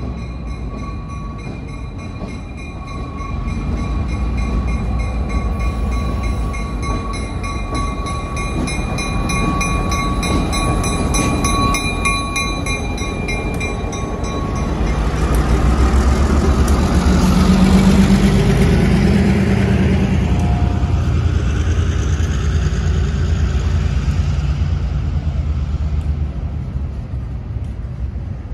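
New York & Atlantic Railway diesel freight locomotive pulling into and past the station, its engine loudest as it goes by about halfway through. Plastic covered hopper cars follow, rolling past with steady wheel and rail noise. Before the locomotive reaches the microphone, steady high-pitched ringing tones sound over a low rumble.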